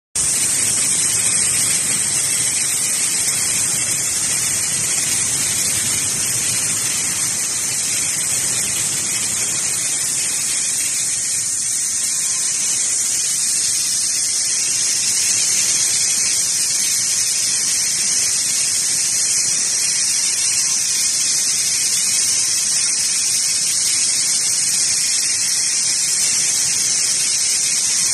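Vertical band saw blade cutting through a clamped bundle of aluminium rods, a steady high-pitched hiss that holds even throughout.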